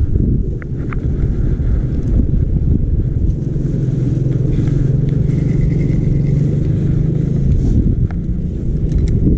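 Heavy low rumble of wind buffeting the microphone by the sea, with an engine's steady hum joining from about three seconds in until near the end.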